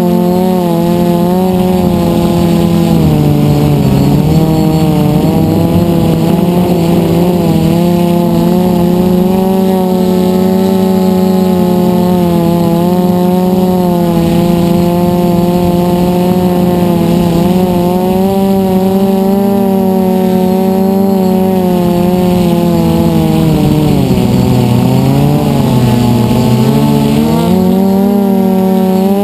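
DJI F450 quadcopter's brushless motors and propellers whining in flight, heard close up from on board. The pitch holds steady, then sags and climbs back twice, about three seconds in and again near the end.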